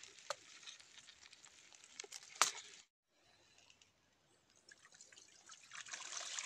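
A few sharp clicks over faint rustling, the loudest just before halfway, as the catch of crabs and small fish is shaken from a mesh trap into a plastic bucket. The sound drops out briefly, then water trickles and drips off a collapsible mesh fish trap as it is lifted out of a shallow stream, growing louder near the end.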